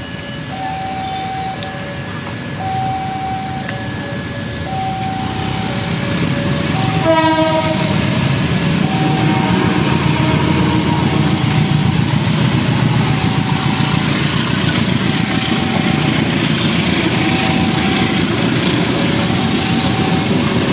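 Level-crossing warning siren sounding a steady repeating pattern of two alternating tones. About seven seconds in, a train horn gives a short blast. The rumble of the Probowangi train passing over the crossing then builds and carries on under the siren.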